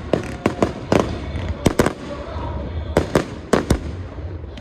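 Fireworks display: a rapid, irregular volley of sharp bangs, about a dozen in under five seconds, over a steady low rumble.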